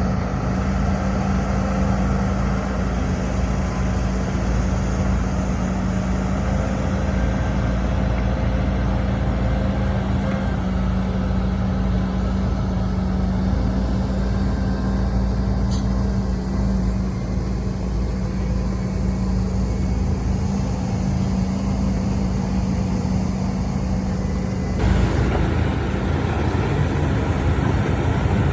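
Heavy diesel earthmoving machinery, an excavator and dump trucks, running steadily with a constant low hum and rumble. The sound shifts abruptly about 25 seconds in.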